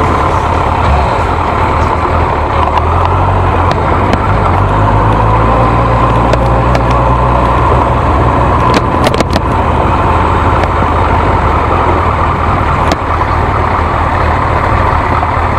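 Sport motorcycle engine running at low speed, heard from a camera mounted on the bike, with rushing noise over the microphone; a few sharp ticks about nine seconds in.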